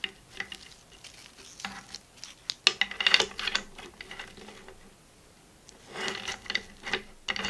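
Tarp guy lines with plastic cord locks being handled: clustered clicks and rattles of the cord locks with the cord rubbing, in a few short bursts, the busiest about three seconds in.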